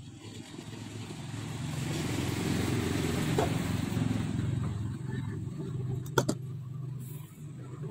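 A motor vehicle passes, its engine noise swelling to a peak about three seconds in and then fading. About six seconds in there are a couple of sharp clicks from pliers working the wiring.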